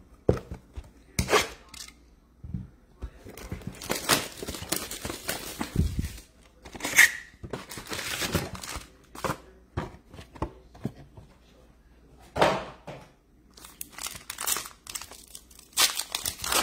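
Plastic wrapping and foil trading card pack wrappers being ripped open and crinkled by hand, a string of irregular tearing and crackling noises.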